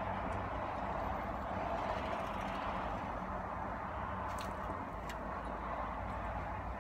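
Steady vehicle noise heard from inside a parked car, an even hiss and hum with no break, with a couple of faint clicks about four and five seconds in.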